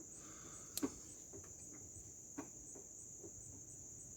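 Crickets chirping steadily in a high-pitched trill, with a couple of faint sharp clicks, one just under a second in and another about two and a half seconds in.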